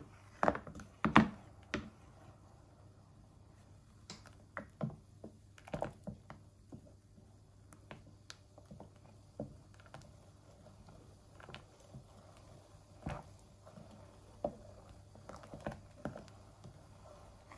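Spoon stirring thick cream and melting butter in an aluminium pot: irregular taps and knocks of the spoon against the pot, the loudest about a second in.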